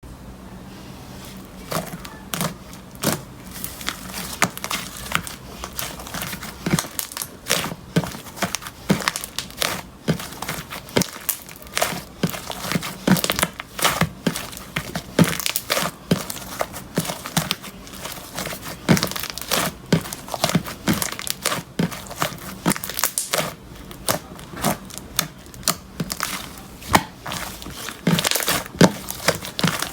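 Hands squishing, pressing and stretching fluffy clay slime, making a dense run of irregular sharp pops and clicks from trapped air, several a second.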